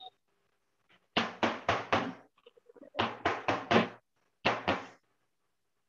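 Round aluminium cake tin filled with batter tapped down on a wooden table to level the batter: ten dull knocks in three quick runs of four, four and two.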